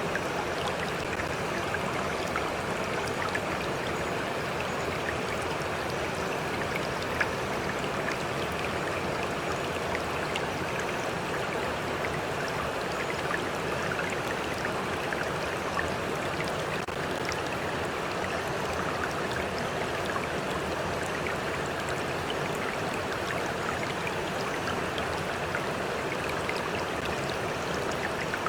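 A stream flowing steadily, with water lapping close by in a constant patter of small splashes and drips.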